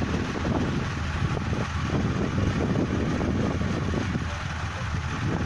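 Hino diesel engine of a John Deere rice combine harvester running steadily with an even, fast-pulsing low drone.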